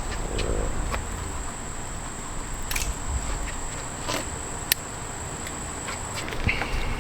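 Scattered light clicks and taps from handling headlight wiring and parts, over a steady high-pitched whine that stops about six seconds in.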